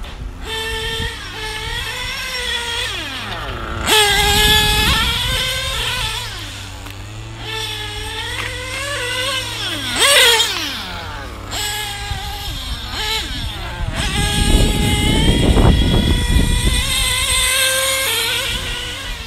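1/8-scale nitro GT RC cars with REDS GT 5T engines lapping the track: high-pitched nitro engines revving up and down through the corners and straights, more than one engine heard at once. It gets loud as the cars pass close, sharply about ten seconds in and again for a few seconds around fifteen seconds in.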